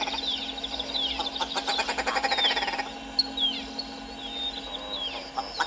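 Willow ptarmigan calling: a fast rattle of clicking pulses mixed with repeated short, downward-sliding notes.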